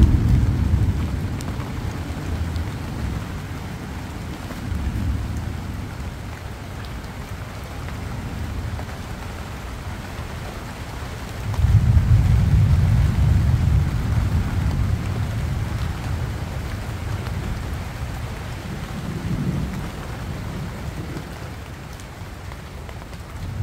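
Steady rain falling on banana leaves, with thunder rumbling several times; the loudest, longest rumble comes about halfway through.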